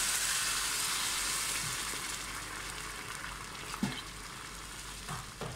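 Water poured from a saucepan into a hot pan of oil-fried basmati rice and whole spices, sizzling strongly at first and dying down as the water covers the rice. There are a few light knocks near the end.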